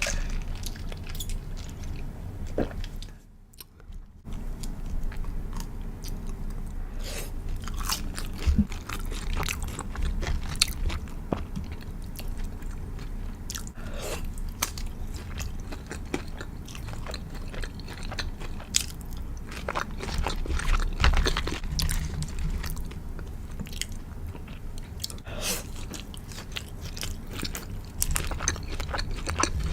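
A person biting and chewing a crispy fried chicken burger close to the microphone, with irregular crunching and crackling of the fried coating. There is a short pause about three seconds in.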